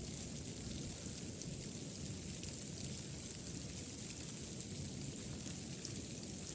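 Steady ambience of a snowstorm: an even hiss with a low rumble underneath, unchanging throughout, with no distinct steps or other events.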